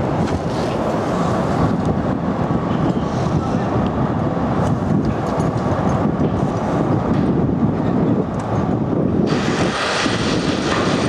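Steady low rumble of vehicle traffic noise. About nine seconds in, a louder hiss joins it.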